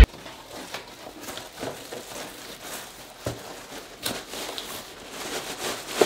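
Cardboard carton being handled as an artificial Christmas tree is worked out of it: faint rustling and scraping of cardboard, with a knock about three seconds in.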